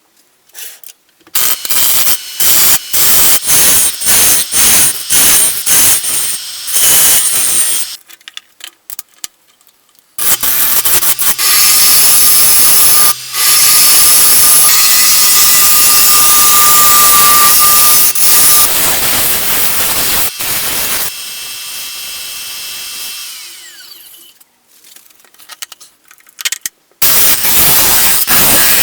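Wood being cut on a lathe, the tool biting the spinning wood in a run of short bursts, then a long steady cut carrying a faint steady whine that fades out, before short bursts start again near the end.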